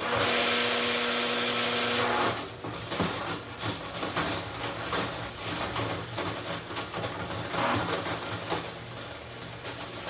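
Washing machine running noisily. A steady whine and rush for the first two seconds gives way to irregular rattling and knocking over a steady low hum, the sound of a machine in poor shape.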